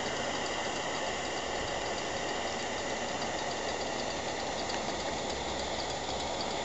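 Steady hiss of a gas blowtorch flame heating the copper bottom plate of a homemade Stirling engine, with a sharp click right at the start.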